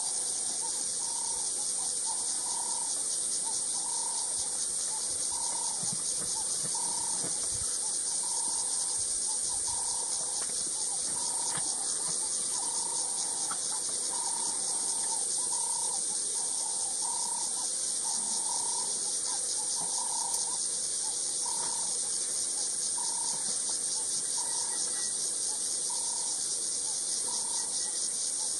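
A dense, steady chorus of insects with a fast pulsing trill, high in pitch. Under it a short call repeats about once a second.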